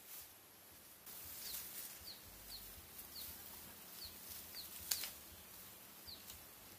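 Dry bamboo branches and leaves rustling and crackling as they are dragged from a pile, with one sharp snap about five seconds in. A bird chirps repeatedly, in short falling notes.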